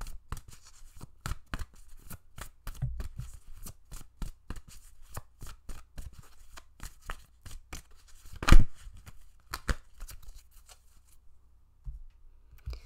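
A deck of oracle cards being shuffled by hand: a quick, irregular run of card flicks and riffles, with one much louder snap about eight and a half seconds in.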